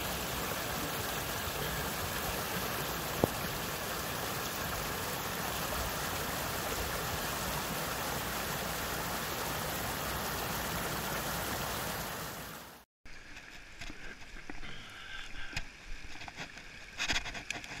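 Full seasonal woodland stream rushing steadily down its narrow channel, swollen with storm runoff. About 13 s in it cuts off, and a quieter, uneven trickle of runoff water flows over leaf-covered ground.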